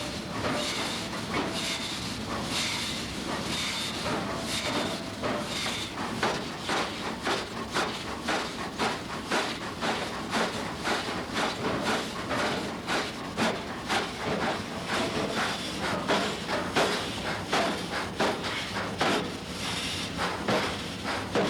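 Hammer blows on metal in wrench forging: spaced strikes with a brief ring at first, then a steady run of about two to three blows a second.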